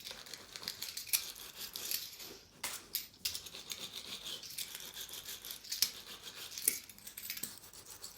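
Scratchy brushing and rubbing noise with several sharp clicks scattered through it.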